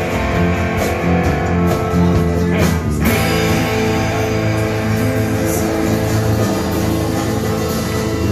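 A live rock band playing, led by electric and acoustic guitars over bass guitar and drums.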